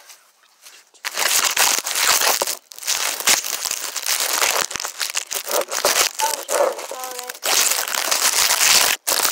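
Dry leaves and twigs crackling and rustling right against a phone's microphone lying on the ground. It starts about a second in, is loud and continuous, and breaks off briefly twice.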